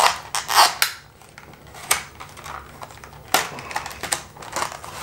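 Plastic packaging of soft-plastic swimbaits being opened and handled: crinkling and sharp plastic clicks. They are densest in the first second, with single clicks about two seconds and three and a half seconds in, and smaller ones near the end.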